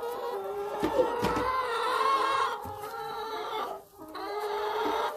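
A flock of brown hens clucking and calling together, with long, drawn-out murmuring calls under the clucks and a few light knocks.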